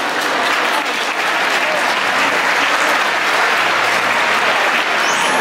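Audience applauding steadily, a dense clapping that runs without a break.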